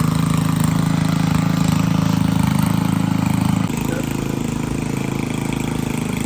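An engine running steadily at idle, with an even, fast pulse; about three and a half seconds in it drops a little in level and its note shifts.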